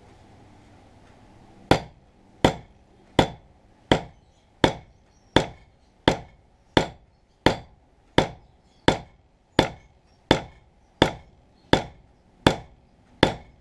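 Hammer striking a wedge being driven into a hatchet handle, the wedge almost all the way in. The blows start about two seconds in and follow in a steady rhythm of about three every two seconds, seventeen in all, each a sharp knock with a brief ring.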